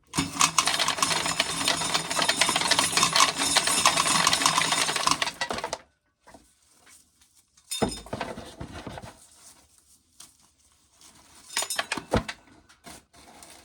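Dry corn being shelled: a dense clattering rattle of kernels that stops suddenly about six seconds in, followed by a few scattered clicks and knocks.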